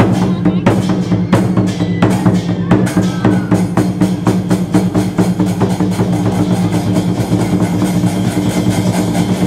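Lion dance music with a regular, loud drum beat over sustained low notes.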